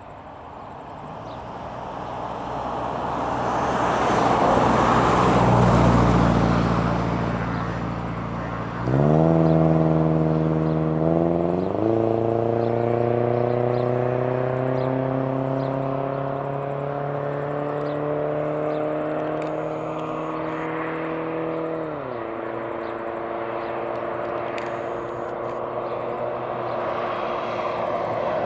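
Air Tractor AT-402B agricultural plane's turboprop engine and propeller. The engine noise swells for several seconds, then about nine seconds in power comes on sharply for the take-off run. The propeller drone climbs in pitch, then rises slowly and steadily, and dips in pitch near the end as the plane lifts off.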